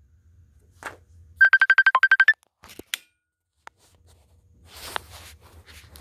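A quick run of about ten short, high electronic beeps lasting about a second, one of them dipping lower near the end. Later come a few soft clicks and paper rustling as a sheet of lined paper is handled.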